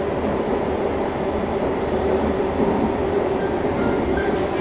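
SMRT C651 metro train heard from inside the carriage while it runs along the track: a constant rumble with a steady hum through it.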